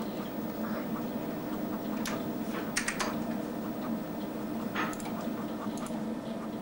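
A few sharp clicks of a computer mouse's buttons: one about two seconds in, a quick pair near three seconds and another near five, over a steady low hum.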